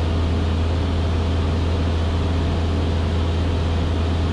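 Cessna 172S's four-cylinder Lycoming IO-360 engine and two-blade propeller droning steadily in flight, heard inside the cabin: a constant low hum with no change in pitch.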